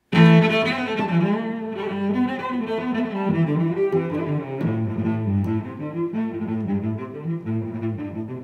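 Instrumental music carried by low bowed strings, starting abruptly at the opening and moving through a melody.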